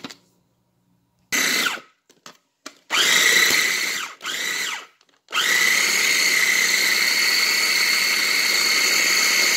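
Small food processor's motor pulsing in three short bursts, then running steadily, chopping chunks of cassava in milk into a purée. Each start comes with a rising whine as the blade spins up.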